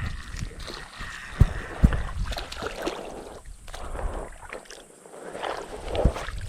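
Creek water sloshing and splashing, with scattered knocks and a few sharp thumps.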